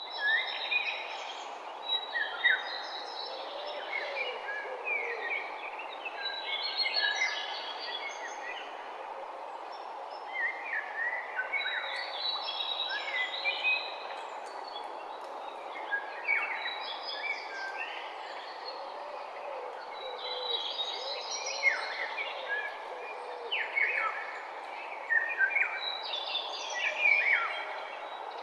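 Morning birdsong ambience: small songbirds singing and chirping in quick bursts every few seconds, over a steady hiss of background noise.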